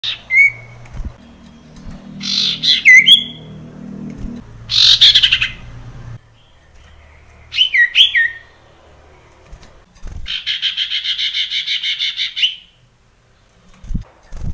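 Male sirtu bird calling: four loud harsh calls with curling, falling notes, a couple of seconds apart, then a fast chattering trill of about ten notes a second lasting over two seconds.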